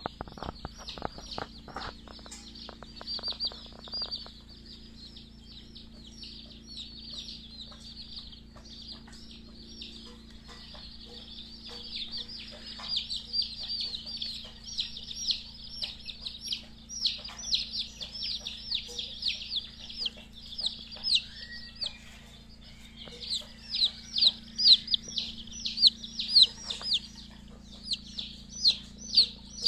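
A flock of young chicks peeping without a break: many short, high, downward-sliding peeps overlapping, growing louder and busier about halfway through. A steady low hum lies underneath.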